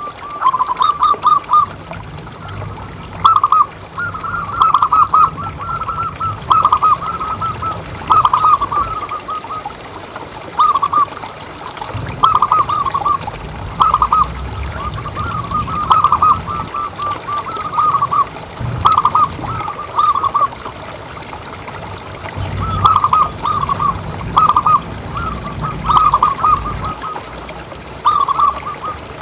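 Zebra doves (perkutut) cooing over and over in short, rapid stuttering phrases, a new phrase every second or two. A low rumble runs underneath and swells at times.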